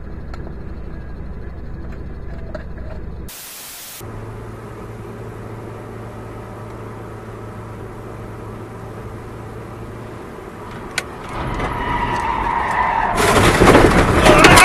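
Car cabin noise while driving: a steady engine and road hum, broken about three seconds in by a short burst of hiss at a cut. Near the end the noise swells into a loud, rough din as the car runs off the road towards the roadside trees in a crash.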